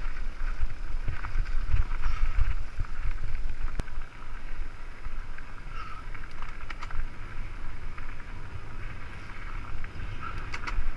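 Mountain bike descending a rough, stony dirt singletrack: wind buffeting the microphone and the bike rattling over the ground, with scattered sharp clicks.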